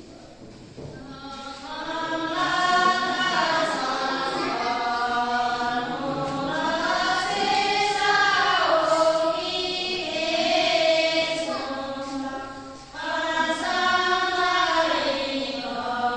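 Group of women singing a Sherpa shyapto (shyabru) dance song together, unaccompanied, in long held notes that glide up and down. The singing starts about a second in and breaks off briefly for a breath about 13 seconds in.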